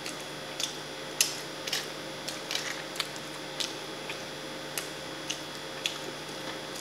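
Close-miked eating sounds from chewing French fries: about a dozen short, wet mouth clicks and smacks at irregular intervals, over a faint steady hum.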